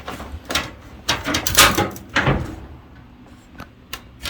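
Clunks and scrapes from the dryer's door and metal panels being handled and pushed shut: several knocks and scraping noises in the first couple of seconds, then a few light clicks near the end.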